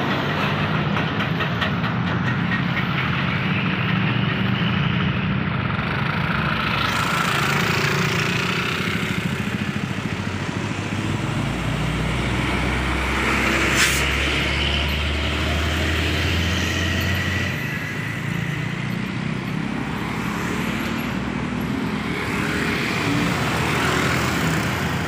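Road traffic passing close: the diesel engines of heavy trucks and motorcycles, with tyre and road noise. About halfway through, a Hino 500 truck's diesel engine rumbles low for several seconds close by, with one sharp click in the middle of it.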